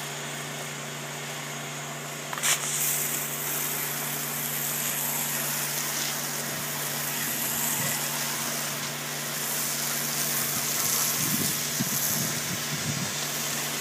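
Low-pressure soft-wash sprayer applying cleaning chemical to wood siding: a click about two and a half seconds in, then a steady hiss of the spray jet hitting the boards. An engine hums steadily underneath.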